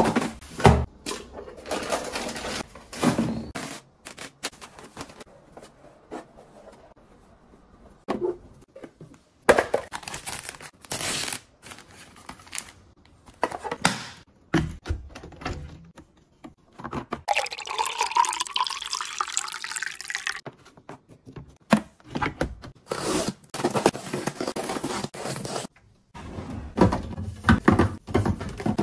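Close household handling sounds: plastic packaging rustling, and items knocking into a plastic bin, against a plastic tissue box and onto a shelf, as plastic bottles are set down. A steady hiss lasts about three seconds a little past the middle.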